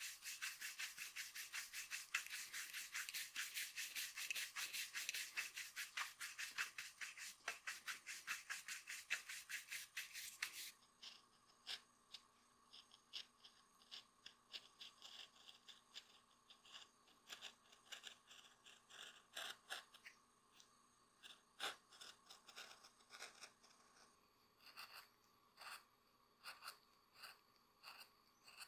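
A brush scrubbed rapidly back and forth over a leather shoe sole in many quick, even strokes, stopping abruptly about ten seconds in. Then a knife blade shaves the leather edge of the sole in short, scattered scrapes and clicks.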